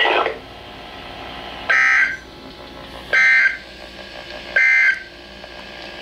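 Midland weather radio's speaker playing the NOAA Weather Radio EAS end-of-message signal: three short, identical bursts of digital data tones about a second and a half apart. They mark the end of the severe thunderstorm warning broadcast.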